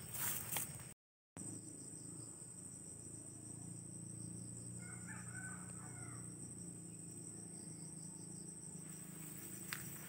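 Steady high chirring of insects, with a rooster crowing faintly about five seconds in. Footsteps through grass at the start and again near the end, and the sound cuts out completely for a moment about a second in.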